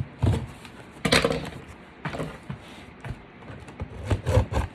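Cardboard shipping box being opened by hand: a string of irregular scrapes and rustles, the loudest about a second in.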